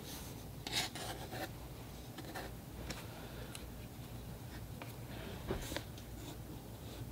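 Pencil drawing on paper: faint scratchy strokes in short runs with gaps between, a little louder just under a second in and again about five and a half seconds in.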